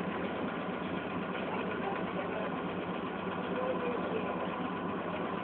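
Chevrolet Opala engine idling steadily.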